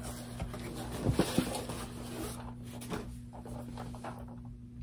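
Plastic and paper packaging rustling and crinkling as a boxed item is pulled out of its wrapping, with a few sharp handling knocks about a second in; the rustling dies down after about two seconds, leaving a steady low electrical hum.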